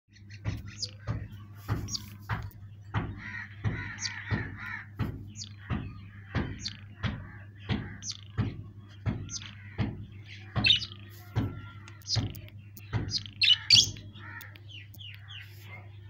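Ringneck parakeet giving a long series of sharp, harsh calls, nearly two a second, that stop shortly before the end, with softer small-bird chirping between them over a steady low hum.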